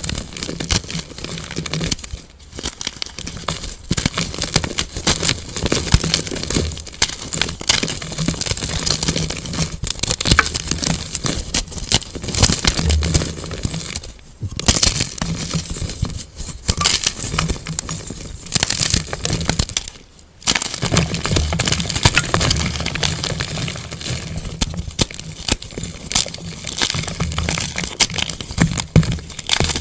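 Hands crushing and crumbling blocks of plain white gym chalk: dense crunching and crackling as the chalk breaks and flakes apart, with a few brief pauses.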